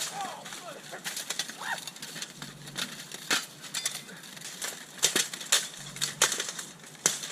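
Armored combat sparring: irregular sharp metallic clanks and knocks of weapons hitting armor, about a dozen strikes, the loudest a cluster around two thirds of the way through. Faint voices in the first couple of seconds.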